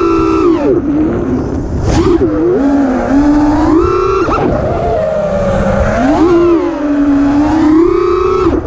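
FPV quadcopter's four 2400kv brushless motors on 4S with HQ 5043 props, whining in pitch as the throttle is punched and dropped, rising and falling several times. Wind rumbles on the onboard camera's microphone underneath.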